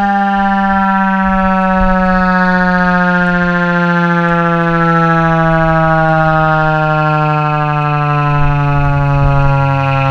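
Federal Signal 2001-130 electromechanical outdoor warning siren sounding the attack signal. Its loud tone falls slowly and steadily in pitch as the wail descends.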